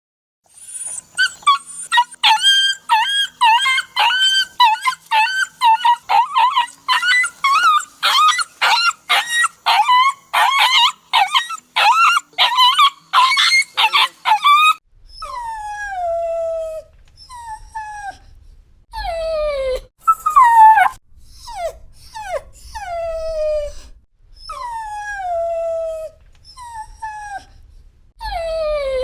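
A dog yelping and crying in rapid, loud, high-pitched bursts, two to three a second: cries of pain. About fifteen seconds in, it changes to a dog whimpering in longer, spaced whines that fall in pitch, with a low rumble behind them.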